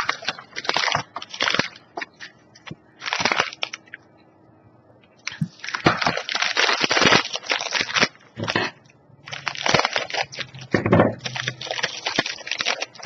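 Plastic snack packaging crinkling and crackling in several bursts as it is handled and opened. There is a short pause about four seconds in.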